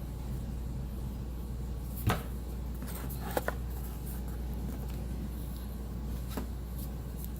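A few light knocks as wooden module pieces are handled and fitted together: one about two seconds in, a quick pair a second later and a faint one near the end, over a steady low hum.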